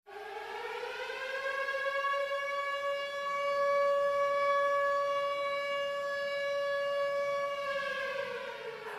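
A single siren-like wail whose pitch rises at the start, holds steady for several seconds, then falls away near the end.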